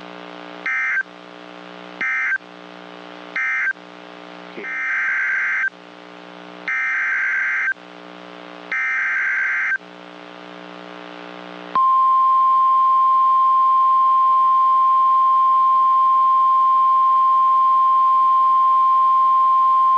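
NOAA Weather Radio EAS/SAME data bursts: three short end-of-message bursts, then three longer header bursts announcing a new warning. About 12 seconds in, the steady 1050 Hz warning alarm tone starts and holds.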